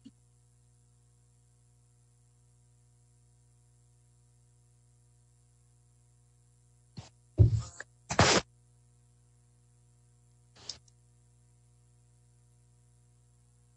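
A faint, steady low electrical hum on the line, broken about seven to eight seconds in by a few short, sharp knocks and rustles, and by one more small knock near eleven seconds.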